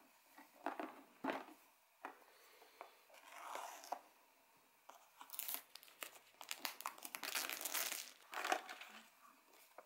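Quiet scratching, tearing and crinkling as a small safety cutter slits the clear plastic seal on a cardboard headphone box and the wrap is pulled away, with light clicks and rustles of cardboard being handled. The densest crinkling comes in the second half.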